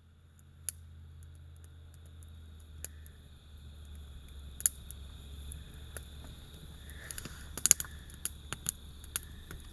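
Wood campfire crackling, with irregular sharp pops and snaps, the loudest cluster about three quarters of the way through. Under it runs a faint steady low hum and a thin steady high tone.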